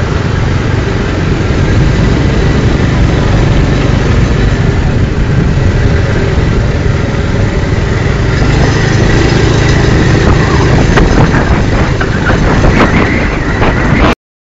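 Tipper lorry's diesel engine running steadily at idle. In the last few seconds a scatter of knocks and rattles joins it.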